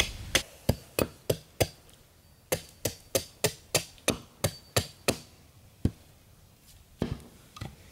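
A hewing hatchet chopping bark on a wooden block into thin chips, to release the tannins for tanning. The sharp chops come as a run of five, then after a short pause a quicker run of about ten, then three scattered strikes near the end.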